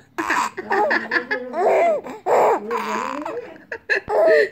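A young baby laughing in a string of short, breathy bursts and squeals.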